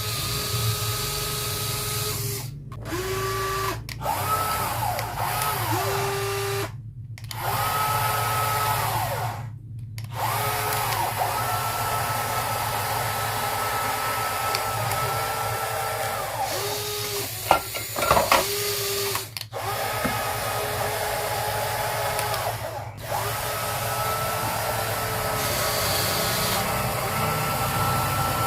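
Small electric gear motors of radio-controlled construction models whining as they run, each whine rising as a motor starts and falling as it stops, again and again, with a few brief pauses. Two sharp plastic clacks about two-thirds of the way through.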